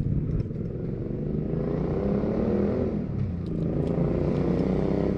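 A motor vehicle engine running close by on a street, its pitch rising and then dipping about three seconds in as it passes.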